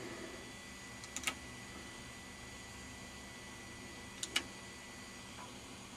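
Two pairs of short clicks from the push-button switches on a Kikusui COS6100M oscilloscope's front panel, about three seconds apart, over a faint steady hum.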